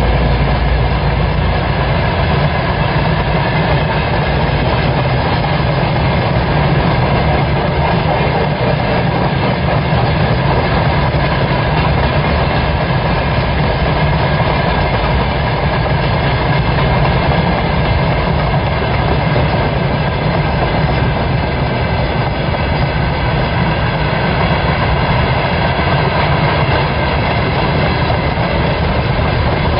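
Long freight train of open-top gondola wagons rolling past at speed: a steady, loud rumble and clatter of steel wheels on the rails that does not let up.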